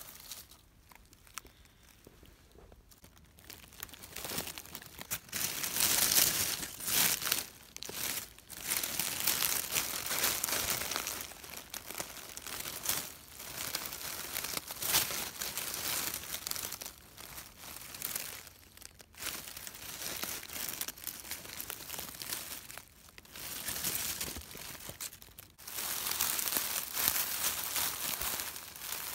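Dry fallen leaves crackling and rustling in irregular bursts as a hand pushes through the leaf litter and clears it away from a porcino mushroom. Fainter for the first few seconds, then repeated handfuls of crackling.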